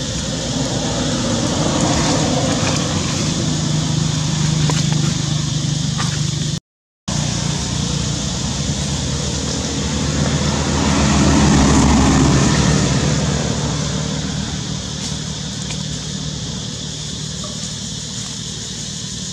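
A motor vehicle's engine running with a low hum over a steady hiss, swelling louder twice as if passing by. The sound cuts out completely for a moment about seven seconds in.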